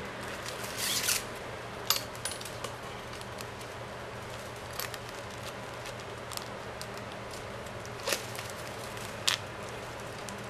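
Plastic packing straps rubbing and clicking as a red strap is threaded through a woven strap base by hand: a short scraping slide about a second in, then a few sharp plastic clicks spaced seconds apart, over a steady low hum.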